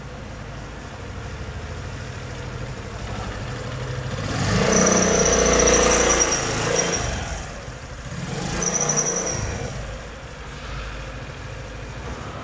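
Suzuki Swish 125 scooter's single-cylinder engine running and revved up twice, with a thin high squeal sounding along with each rev. This is the abnormal noise from the CVT clutch that has come back after the clutch bell and clutch were replaced.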